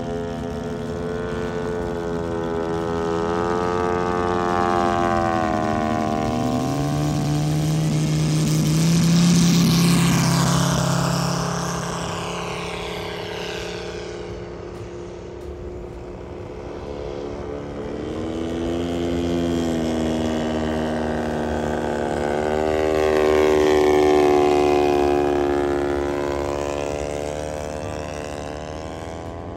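A T-6 Texan–type single-engine propeller plane's engine opening up for takeoff, its pitch climbing over the first several seconds. It then flies past twice: the engine note grows louder and higher as it comes in and drops as it goes away, loudest about ten seconds in and again a few seconds before the end.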